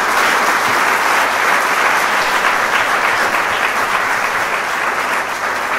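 Congregation applauding, a steady dense clapping that eases slightly near the end.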